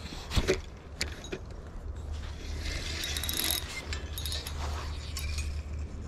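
Spinning fishing reel being cranked and handled: a few sharp clicks early, then a stretch of rapid mechanical rattling, over a steady low hum.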